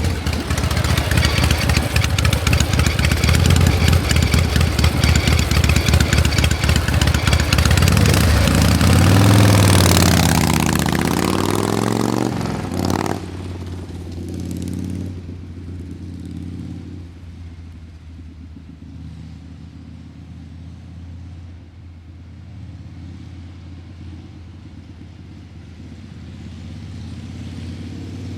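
Motor vehicle engine running loud, its pitch dipping and rising around ten seconds in. About thirteen seconds in it drops suddenly to a quieter, steady low hum.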